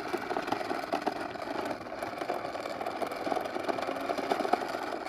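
Toy bubble lawnmower running as it is pushed: a steady small-motor whir with a rapid plastic rattle.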